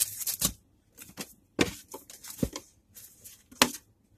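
Box contents being handled: irregular bursts of rustling and crinkling from packaging and a folded t-shirt being pulled out, with a few soft thumps.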